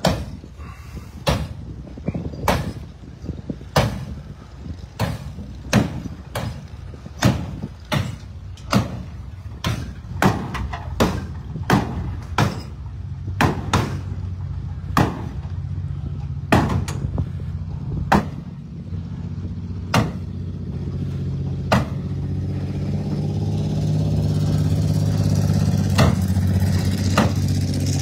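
Sledgehammer blows on a battered demolition derby car's sheet-metal body, a sharp metallic bang about once a second, over and over. From about halfway through, a vehicle engine running is heard underneath, growing louder toward the end.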